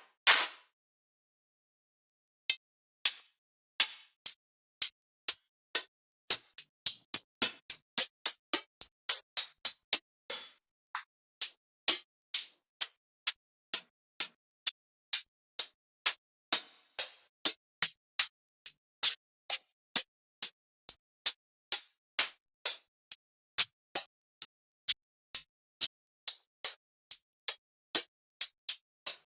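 Synthwave drum-machine samples played one after another: a long run of short, bright percussion hits with silence between each. They are sparse at first, then come quicker, then settle at about two a second.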